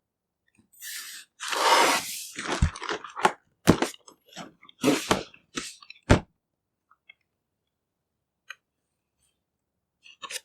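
Packaging of a boxed figure being handled and opened by hand: a crinkling rustle about a second in, followed by several sharp knocks and shorter rustles over the next few seconds.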